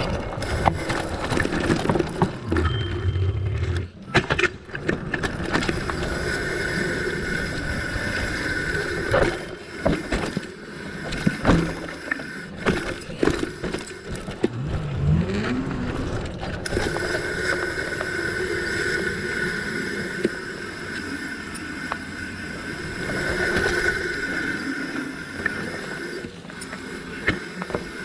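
Fatbike rolling over a dirt forest trail: a steady hum of the wide tyres on the ground, broken by knocks and rattles from bumps and roots, which come thickest in the middle.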